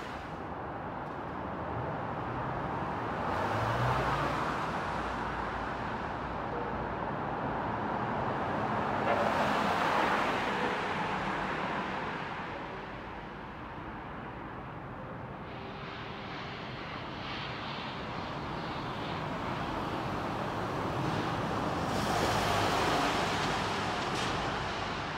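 Trains running on nearby tracks: a broad rushing rumble with no clear tone, swelling and fading several times and loudest about ten seconds in.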